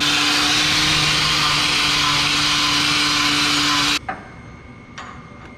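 A power tool running steadily and grinding or cutting on steel tubing, with a loud hiss over a constant motor tone, then switched off abruptly about four seconds in.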